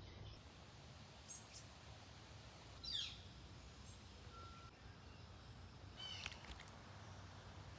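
Near-quiet outdoor background with faint bird calls: one quick call falling in pitch about three seconds in, and a short run of chirps about six seconds in.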